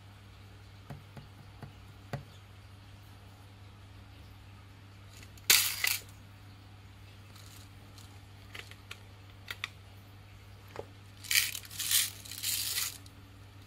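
Plastic toy vending-machine candy dispenser: light clicks from its button, then a loud clatter about five and a half seconds in as small hard candy balls drop into the dispensing tray. Near the end, a second or two of rattling as the machine is tilted and the candies tumble out of the tray.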